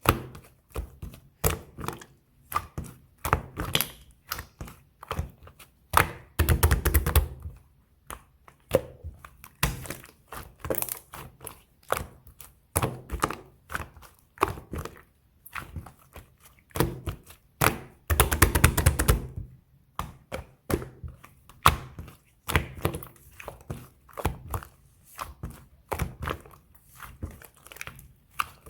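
Fluffy slime being pressed and squeezed by hand: an irregular run of sticky clicks and soft pops. Twice, a dense stretch of crackling lasts about a second.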